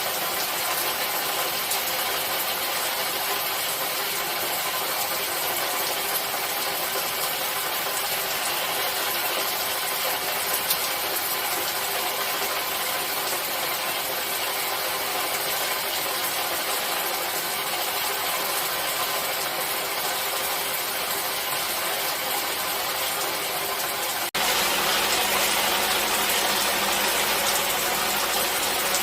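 Steady rainfall, a constant even hiss. About 24 seconds in it cuts abruptly to a slightly louder, brighter stretch of rain.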